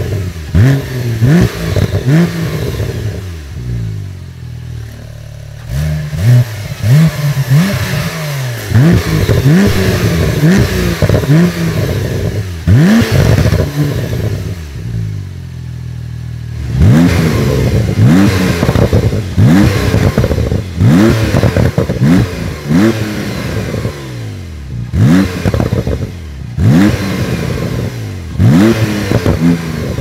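Twin-turbo flat-six of a Techart GT Street R (Porsche 911 Turbo-based) being free-revved while standing, in a quick series of short throttle blips that rise sharply and fall back, with pops and crackles from the exhaust as the revs drop. It settles to idle twice, about four and fifteen seconds in, before the blips resume.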